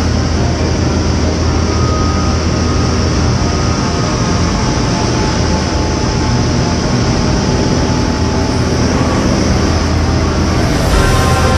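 Cessna 188 Agtruck's piston engine and propeller running steadily at a loud, even drone, heard from inside the cockpit during a low pass over a field.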